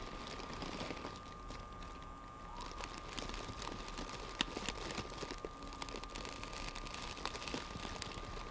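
Faint handling noise from a camera resting in a bag as it is carried around: scattered light clicks and rustling, busier from about three seconds in, over a steady faint high-pitched hum.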